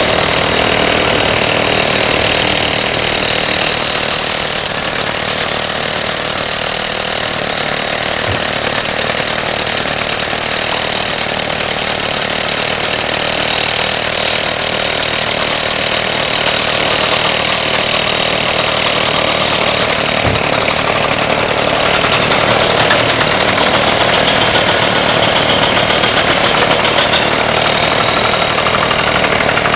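Heavy diesel construction machinery running steadily, with excavator and truck engines blending into one dense, even noise.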